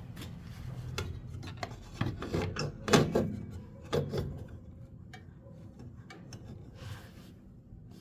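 Handling noise: rubbing and scraping with a run of irregular clicks and knocks, loudest about three and four seconds in, then fainter.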